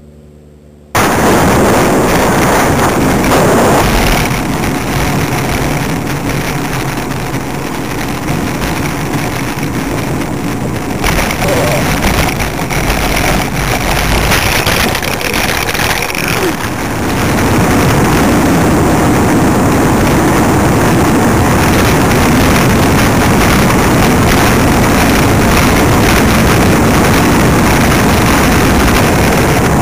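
Heavy wind buffeting on the microphone of a camera riding on a moving bicycle, with road and tyre noise beneath it. It cuts in abruptly about a second in and becomes louder and steadier a little past halfway.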